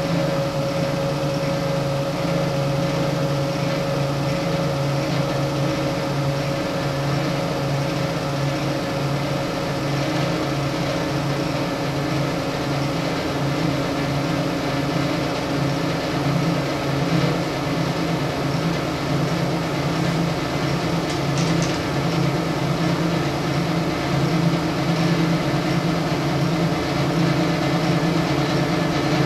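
CNC-converted RF-45-clone (ZX45) milling machine running a program, its stepper motors driving the table along the X and Y axes with a steady multi-tone hum. A higher tone in the hum fades out about six seconds in.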